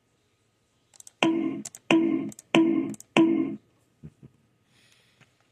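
A man's voice making four short, identical mouth-noise sounds, each about half a second long and a little over half a second apart, as a comic vocal impersonation. Two soft knocks follow.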